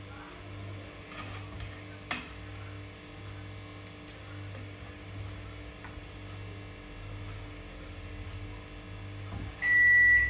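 A serving spoon scraping and clinking in a pan of fish curry as it is ladled into a glass baking dish, with a light clink about two seconds in, over a steady low hum. Near the end, a single loud, high electronic beep that lasts under a second is the loudest sound.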